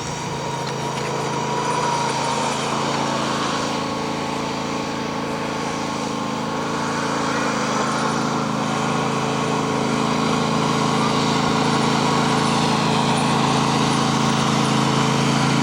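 A small engine running steadily, its even drone slowly growing louder.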